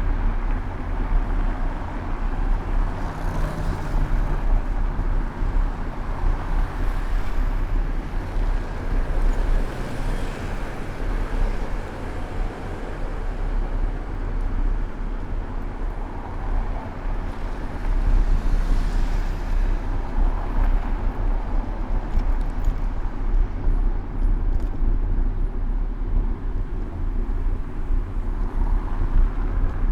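City road traffic heard from a moving bicycle: cars passing now and then over a constant low rumble.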